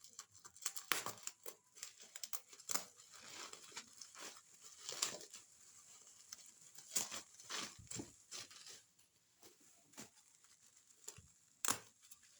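Packaging being handled and torn open by hand during an unboxing: irregular tearing, crinkling and rustling with scattered sharp snaps and clicks.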